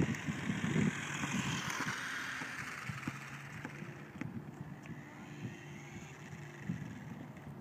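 A toy radio-controlled car's electric motor whirring and its tyres rolling on concrete, fading as the car drives off. Wind buffets the microphone in the first second.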